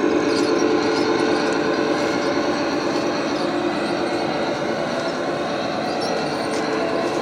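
G-scale model train running along garden railway track: a steady running sound of motor and wheels, a little louder at the start.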